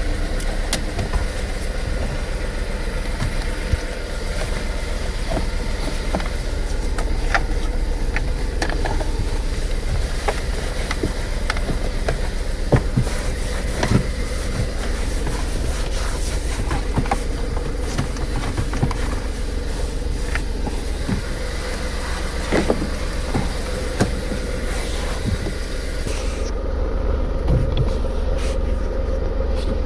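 Car engine running steadily at idle, with scattered light clicks. The engine is running on a revived battery.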